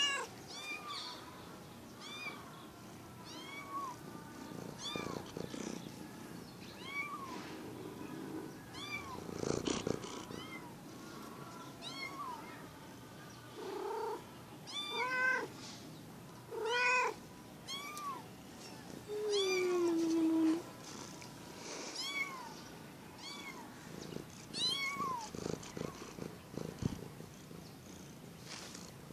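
Ginger domestic kittens mewing over and over, thin high rising-and-falling calls every second or two. A few louder, lower meows come about halfway through, followed by one long meow that falls in pitch.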